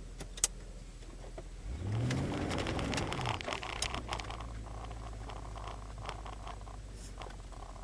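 Car engine heard from inside the cabin while driving, running steadily. About two seconds in it revs up and then eases off, with a sharp click near the start and scattered light knocks and rattles.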